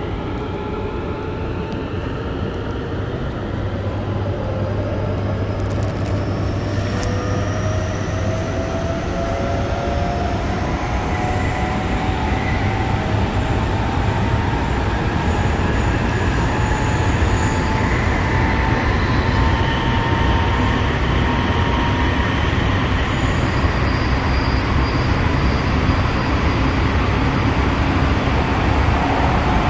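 Tsukuba Express electric train accelerating: the traction motor whine glides up in pitch as speed builds, over a steady rumble of wheels on rails that grows louder.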